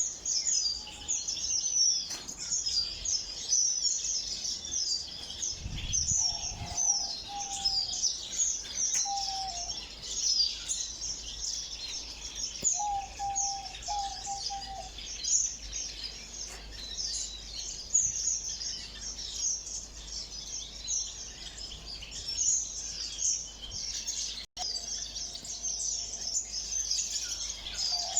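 Many small ornamental cage birds chirping together in an aviary: a dense, continuous high-pitched twittering. Now and then a bird gives a few short, lower notes, and there is a brief low thump about six seconds in.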